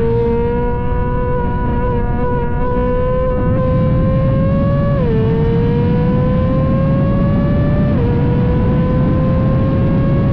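Ferrari engine under acceleration on a racetrack. The engine note climbs steadily, then drops abruptly at upshifts about five and eight seconds in before climbing again.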